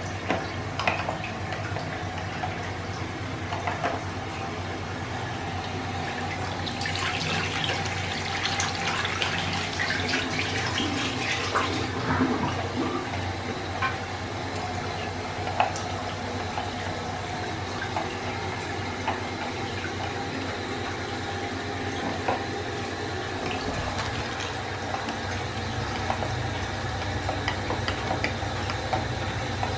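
Water running steadily, heavier from about 7 to 12 seconds in, with scattered clicks from a wall-mounted soap dispenser's push lever being pressed again and again.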